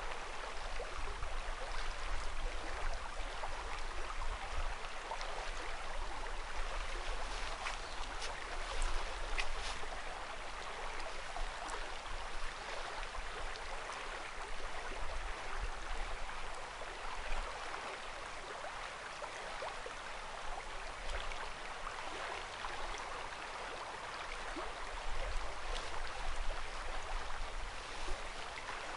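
The Current River flowing over a riffle: a steady rush of moving water, with a low rumble that comes and goes underneath.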